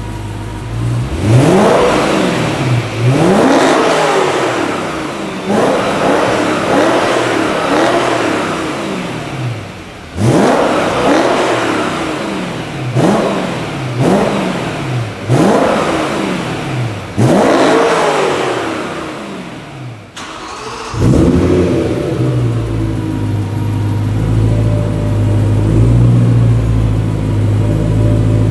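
BMW E93 M3's V8 on its stock muffler system, revved over and over from idle, each rev rising and falling back. About 21 seconds in, it switches to a steady idle through an aftermarket Meisterschaft GT exhaust with SR pipes, noticeably deeper and fuller.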